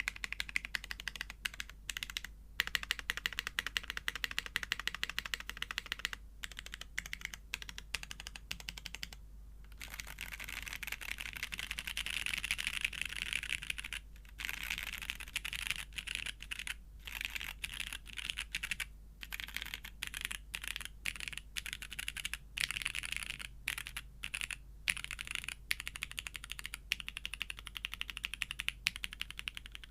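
Rapid repeated key presses on a custom top-mount mechanical keyboard with lubed, retooled Cherry MX Black linear switches in an aluminium plate. These are the alpha, modifier and spacebar keys being struck in quick runs with brief pauses between.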